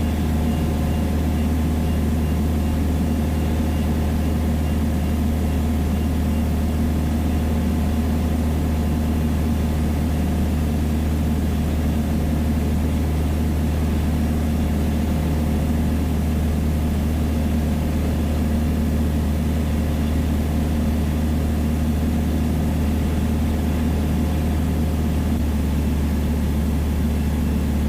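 Cockpit drone of a Piper Dakota's six-cylinder Lycoming engine and propeller running steadily in cruise flight: a constant low hum with fixed tones above it, unchanging throughout.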